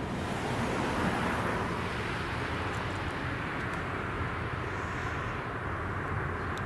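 Steady low rumble of a distant diesel freight locomotive mixed with tyre noise from passing road traffic. The traffic hiss swells about a second in.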